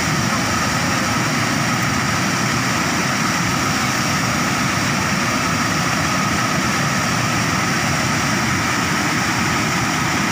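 Water pouring over a concrete weir and churning in the pool below: a loud, steady rush with no let-up.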